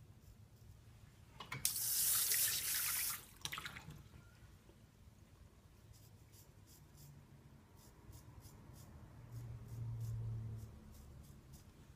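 A loud hissing rush for about a second and a half near the start. Then a straight razor scraping lathered stubble on the neck in short, even strokes, about two to three a second.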